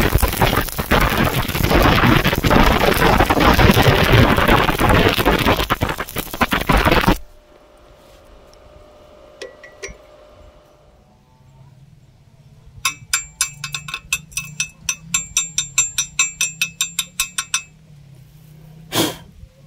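Stick (shielded metal arc) welding arc crackling loudly as a bead is run joining rebar to flat steel bar, cutting off sharply about seven seconds in. After a quiet spell, a quick run of ringing metallic clinks, about five a second for some five seconds, as the slag is chipped off the weld; a single knock near the end.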